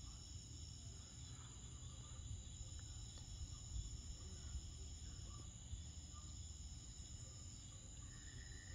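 Night insects such as crickets trilling steadily in several high-pitched layers, one of them starting and stopping every two to three seconds, and a lower trill joining near the end. A faint low rumble runs underneath.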